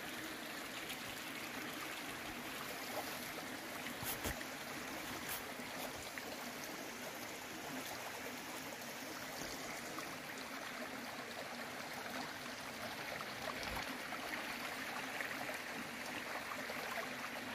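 Steady rushing of flowing water, like a small stream, with a couple of faint clicks about four and five seconds in.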